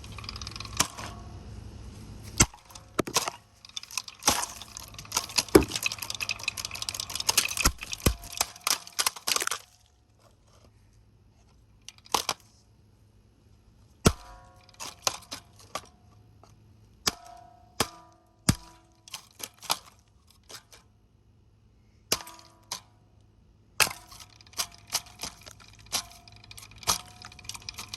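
A Hampton Bay ceiling fan being smashed apart: a dense scraping clatter for about the first ten seconds, then scattered sharp knocks and cracks, a few with a short metallic ring.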